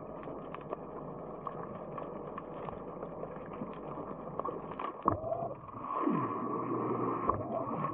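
BlueROV thrusters heard through muffled water noise with scattered small clicks. About five seconds in there is a sharp clunk, then a motor whine falls steeply in pitch and gives way to a steady motor hum.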